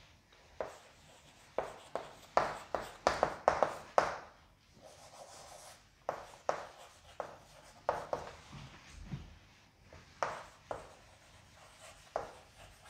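Chalk writing on a blackboard: a run of short taps and scrapes as letters are formed, thickest about two to four seconds in, then more scattered strokes.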